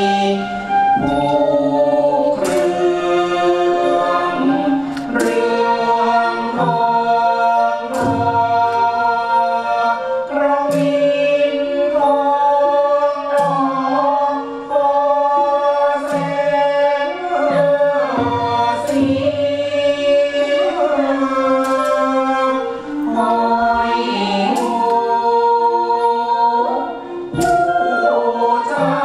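Choir singing held, slowly moving notes over orchestral accompaniment for a Khon masked dance-drama, with a sharp percussion stroke about every two and a half to three seconds.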